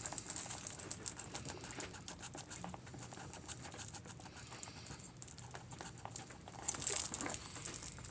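Faint clicks and rustles of sailcloth being worked by hand, as stitching holding a slide strap is cut with a craft blade and pulled free. There is a short, louder rustle about seven seconds in.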